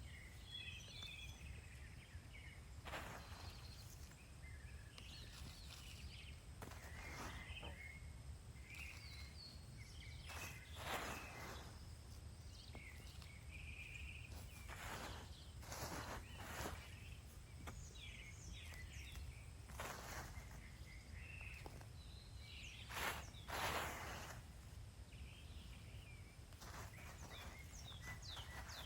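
Faint, irregular rustling and scraping of hands digging through potting soil in a fabric grow bag to uncover potatoes.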